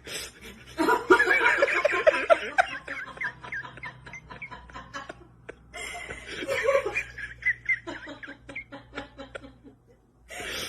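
A person laughing in quick, broken bursts, in two bouts with a short pause between them.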